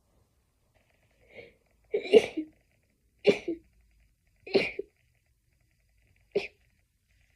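A person's stifled sneezes: four short, muffled bursts in quick succession, about a second and a half apart, the first the loudest and the last the shortest. A faint short sound comes just before them.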